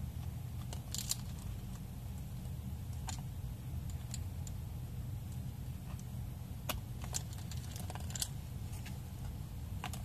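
Small sharp clicks and rattles of plastic wire-harness connectors and loose wires being handled and pushed onto arcade pushbutton switches, scattered irregularly with a cluster about two-thirds of the way in, over a steady low hum.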